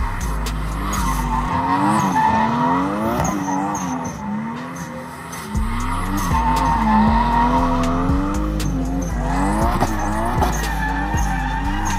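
A drift car's engine revving up and down over and over as it slides, with its tyres squealing throughout. There is a brief lull about four to five seconds in before the engine picks up again.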